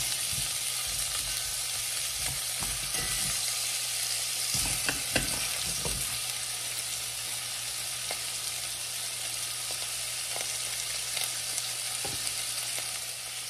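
Carrot and potato chunks sizzling steadily in hot oil as they are pan-fried in a pot, with a few light clicks of chopsticks turning them, mostly in the first half.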